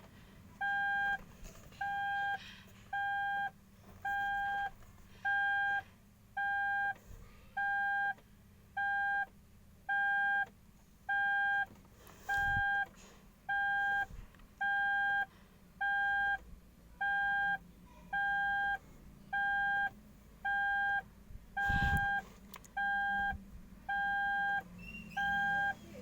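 Electronic alarm beeping: one steady mid-pitched tone in short beeps, about one a second, repeating evenly.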